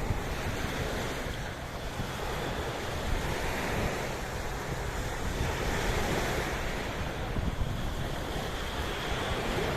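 Sea waves washing in steadily, swelling and easing, with wind buffeting the microphone.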